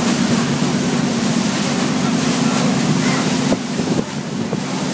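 A river boat's engine running with a steady hum, under the rush of wind and water on the microphone; the sound dips briefly about three and a half seconds in.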